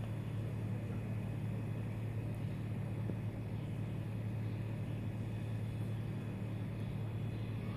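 Steady, unchanging low hum, like an engine or machine running out of sight.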